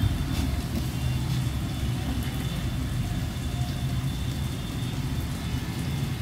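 Onion, tomato and green chilli frying in a small steel pan on a gas stove, with faint scattered crackles over a steady low rumble.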